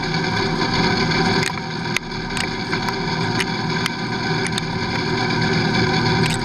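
Lathe turning the outside of a metal cylinder to size, with a steady machine whine and the scrape of the tool cutting. Scattered sharp ticks come through during the cut.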